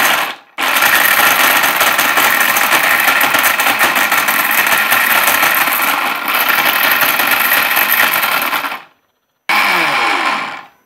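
Orpat 1200-watt mixer grinder running in short pulses to grind dried turmeric pieces in its small steel jar. A brief burst, then a run of about eight seconds that stops abruptly, and after a pause another short burst that drops in pitch as the motor winds down.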